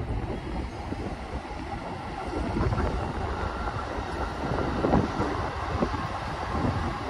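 Electric commuter trains running past on the rails, a steady rumble of wheels on track with a few louder knocks about three and five seconds in, and wind on the microphone.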